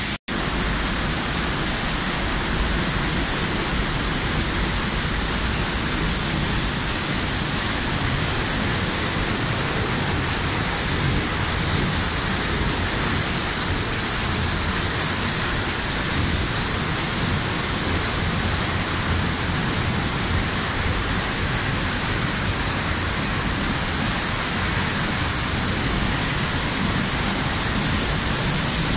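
Close-up waterfall: a steady, unbroken rush and hiss of water falling onto rock, with spray.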